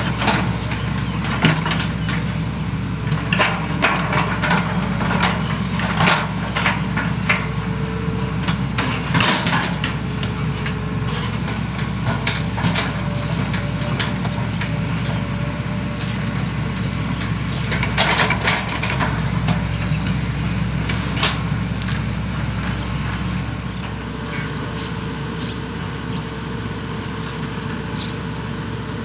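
Two hydraulic excavators' diesel engines running steadily under load while they dredge, with irregular clanks and knocks from the working machines, a cluster of them about two-thirds of the way through.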